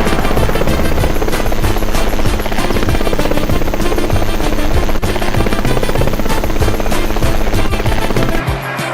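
Music mixed with a loud, rapid, steady chopping or rattling sound effect, which eases in the low end near the end.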